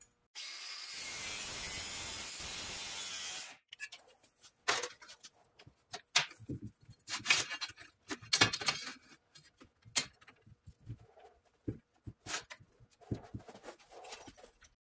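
Cordless angle grinder with a cut-off disc cutting through steel angle iron for about three seconds, then stopping suddenly. A string of irregular clanks and knocks follows as the steel pieces and clamp are handled.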